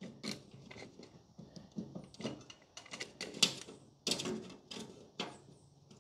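Irregular light clicks, taps and scrapes of a tape measure and a loose steel shock tower assembly being handled, as the part is nudged into position against a measurement.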